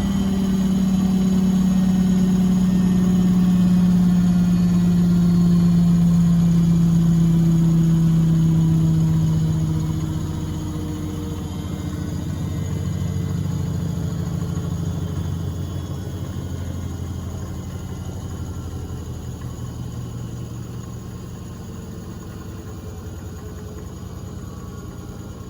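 Washing machine motor and drum running down: a steady hum whose pitch slowly falls, loud for about ten seconds and then gradually fading as the drum slows.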